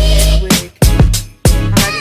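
Background music: a hip-hop/R&B style track with a heavy bass beat and a sung or synth melody line.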